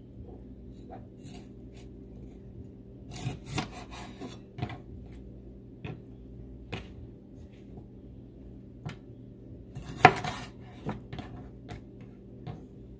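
Kitchen knife cutting raw chicken wings apart at the joint on a wooden cutting board: scattered knocks and scrapes of the blade on the board, the loudest about ten seconds in.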